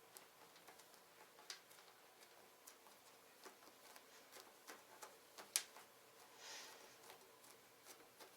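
Sticky butter-shaped foam squishy toy being handled close to the microphone: faint scattered sticky clicks and crackles as it is pressed and peeled, with one sharper click past the middle and a brief soft hiss shortly after.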